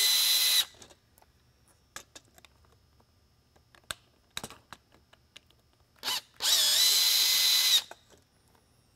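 Cordless drill/driver backing out the screws that hold a rotating beacon's reflector. One motor run stops about half a second in, a few light handling clicks follow, then a short blip and a second run of about a second and a half near the end, its pitch dipping before it steadies.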